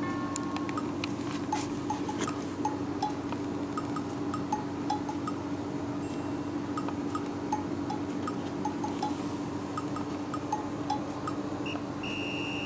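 Light background music of small chiming, clinking notes in a repeating pattern over a steady low tone, with a short high tone near the end.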